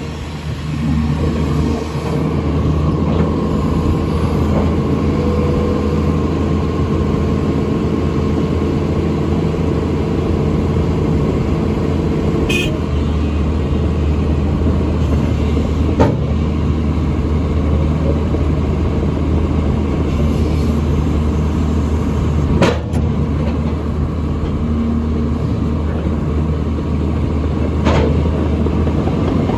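Sany 215 excavator's diesel engine running steadily while working, with a few sharp knocks about 16, 23 and 28 seconds in, the one near 23 seconds the loudest.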